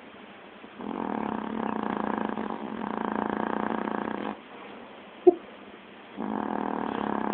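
A sleeping pet snoring: one long snore of about three and a half seconds, then a brief sharp squeak about five seconds in, the loudest sound, and another snore near the end.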